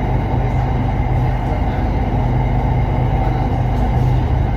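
Red Line electric commuter train running between stations: a steady running noise with a low, even hum.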